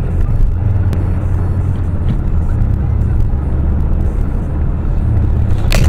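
Steady low engine and road rumble of a car driving, heard from inside the cabin. Near the end, a sudden loud clatter of a road collision ahead begins.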